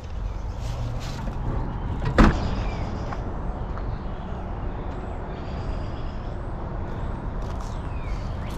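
A single sharp knock, like metal being struck or a door shutting, about two seconds in, over a steady low rumble.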